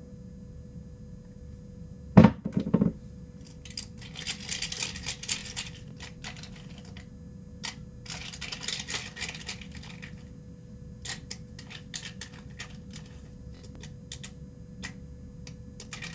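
Aerosol shaving cream can hissing in two bursts of about two seconds each as foam is sprayed out. Around them are a loud knock about two seconds in and scattered light clicks and taps.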